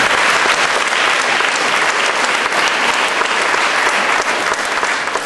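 Audience applauding steadily, a dense patter of many hands clapping, beginning to die away at the very end.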